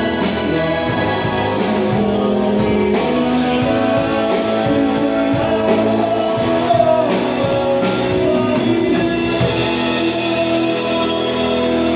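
Live band playing a pop cover song: electric bass, keyboard and drums with a steady cymbal beat, and a woman singing in places.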